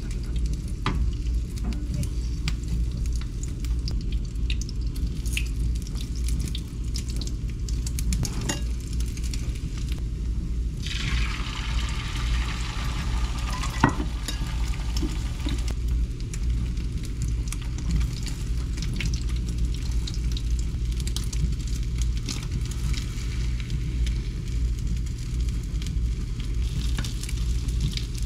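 Beaten egg frying in a small rectangular nonstick omelette pan on a gas burner, with small scrapes and taps of a spatula against the pan. About 11 seconds in, fresh egg hits the hot pan and the sizzle grows louder for several seconds, with one sharp clack from the spatula near the middle of it.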